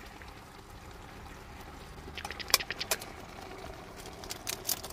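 A pan of menemen, eggs in tomato and green pepper sauce, simmering: a faint steady bubbling hiss with scattered small pops and clicks, a few around two to three seconds in and again near the end.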